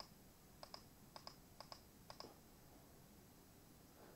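Faint clicks of a computer mouse or keyboard keys, each a quick press-and-release pair, about five of them roughly half a second apart, stopping about halfway through.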